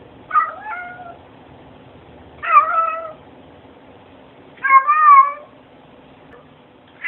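Domestic cat meowing three times, about two seconds apart, each meow short with a wavering pitch, the two-part 'talking' kind that sounds like 'hello'; a fourth meow starts at the very end.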